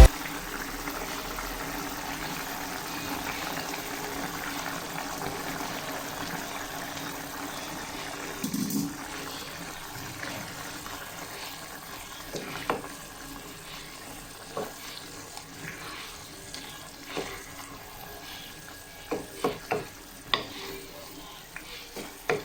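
Food sautéing in a pan: a steady sizzle that slowly gets quieter, with the clinks and scrapes of a utensil stirring against the pan from about a third of the way in, and several sharper knocks near the end.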